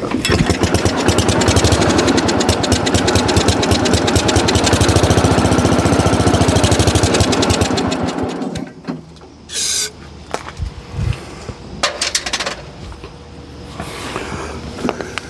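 Wheel Horse 702's cast-iron single-cylinder Kohler engine running fast and rough on a squirt of aerosol spray for about eight seconds, then dying out, followed by a short spray-can hiss. It won't keep running on its own, which the owner puts down to a clogged fuel line or a fuel pump that isn't working.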